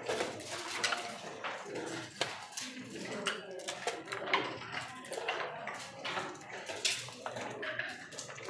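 Backgammon checkers clicking and clacking on the board as they are picked up and moved in quick succession during a fast speedgammon move, with a murmur of voices in the hall.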